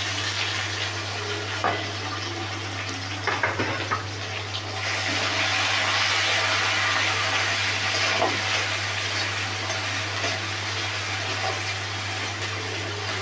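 Chopped onions sizzling and frying in hot mustard oil in a wok, stirred with a spoon that scrapes against the pan a few times. The sizzle grows louder about five seconds in, over a steady low hum.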